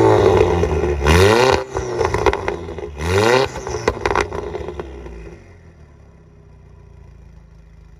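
B8 Audi A4 2.0T turbocharged four-cylinder, exhaust fitted with a center resonator delete and a cat delete, revved loudly twice, about a second and about three seconds in. It then drops back to a steady, quieter idle.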